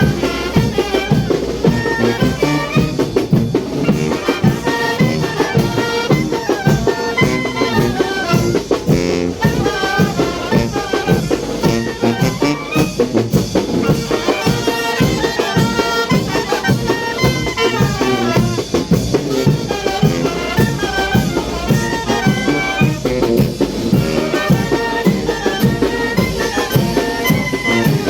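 Mexican brass band (banda de viento) playing chinelo dance music: brass melody over a steady drum beat.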